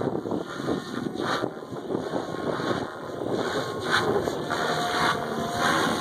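SAB Goblin 700 radio-controlled helicopter flying aerobatics, its rotor blades whooshing and swelling and fading in loudness as it manoeuvres, with some wind noise on the microphone.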